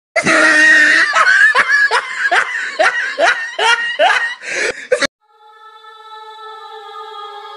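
Loud laughter: one held note, then about ten quick 'ha' bursts that cut off abruptly about five seconds in. A quiet, steady electronic music chord then fades in.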